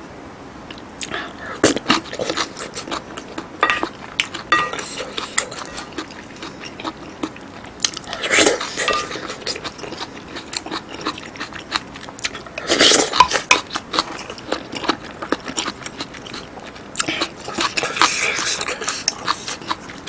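Close-miked eating sounds: utensils clicking and scraping against a platter and bowl of thick curry, with chewing between. Two louder noisy swells come about 8 and 13 seconds in.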